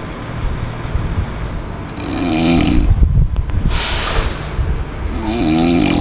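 A person snoring: two long snores with a wavering pitch, about two seconds in and again near the end, with a breathy exhale between them, over a steady low rumble.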